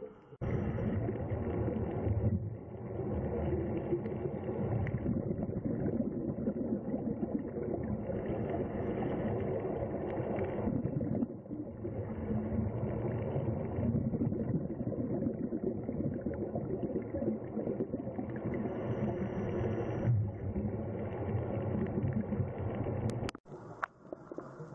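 Muffled underwater rumbling picked up through a camera's waterproof housing: a dense, dull noise with no high end. Near the end it cuts off abruptly with a couple of sharp clicks.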